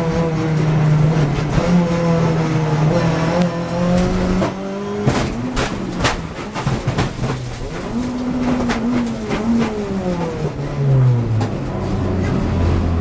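Renault Clio Cup race car heard from inside the cockpit, its engine running hard at high revs. About five seconds in the car crashes: a run of sharp knocks and bangs over several seconds, while the engine revs rise briefly and then drop away to a low note near the end.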